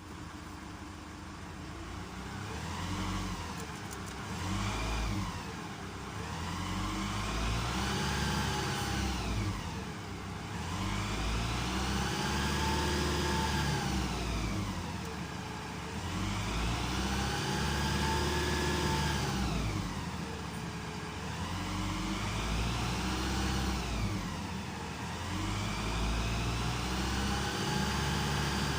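Nissan YD25 four-cylinder turbodiesel running, revved up and let fall back about five times. A pitched tone rises and falls with the revs. This is an unidentified extra noise that the owner cannot place between the engine and the automatic transmission.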